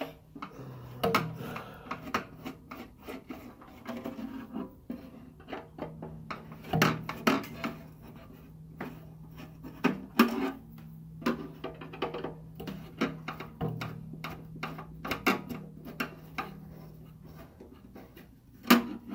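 Hand work on the metal parts of a tankless water heater: irregular clicks, knocks and scraping as a component is worked loose and taken off, with a few sharper knocks.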